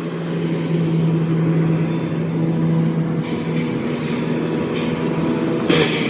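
Forestry mulcher's diesel engine running under steady load while clearing dense brush, with short hissing, crunching bursts about three seconds in and again near the end.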